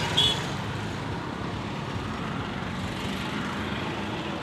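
Road traffic noise from passing vehicles: a steady rumble and hiss. A vehicle horn beeps briefly right at the start.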